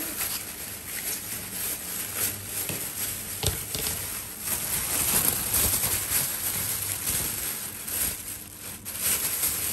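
Thin plastic bag rustling as leafy greens are handled and pulled out of it, with the leaves brushing against each other; a single knock about three and a half seconds in.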